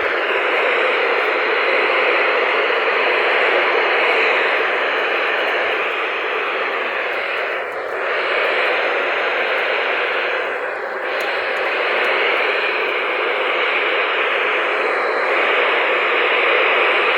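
Loud, steady hiss of radio static from a weather radio receiver with no broadcast coming through, thinning briefly a few times.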